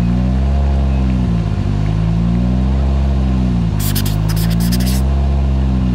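Audi S1 rally car's engine revved in repeated throttle blips while the car stands still, the pitch rising and falling about every second and a half. A quick run of sharp crackles comes about four seconds in.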